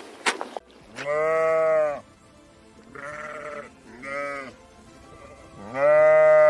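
Sheep bleating four times: two long, loud bleats with a fainter, shorter pair between them, the last one still sounding at the end.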